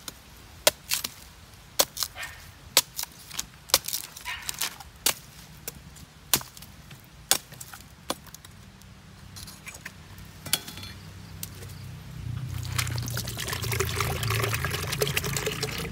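A big chopping knife striking a young Malay dwarf coconut's husk and shell: a run of sharp chops, about fifteen, over the first eight seconds as the top is opened. Near the end, coconut water pours in a steady stream into a plastic measuring jug.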